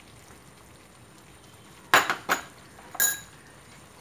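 Three sharp clinks of a small ceramic plate knocking against the frying pan about two seconds in, the last one ringing briefly.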